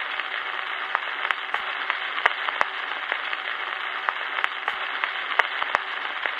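Radio-style static: a steady, thin hiss with irregular sharp crackles and clicks scattered through it.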